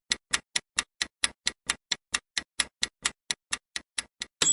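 Quiz countdown timer sound effect: even clock-like ticking, about four ticks a second. Near the end a bright bell ding rings out as time runs out.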